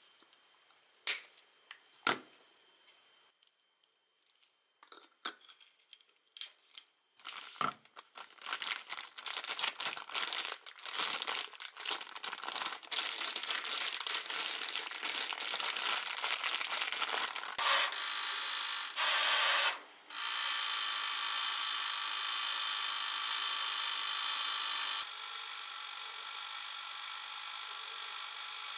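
Plastic zip-top bag crinkling and crackling as food is kneaded with seasonings inside it, after a few scattered taps and clicks. About twenty seconds in, a steady hum-like noise takes over and drops a little in level near the end.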